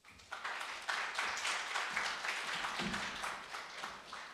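Congregation applauding in welcome: many hands clapping, starting suddenly and dying away toward the end.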